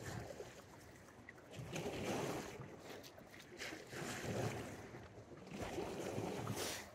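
Small waves washing in against the shore, a swell of water noise rising and falling about every two seconds.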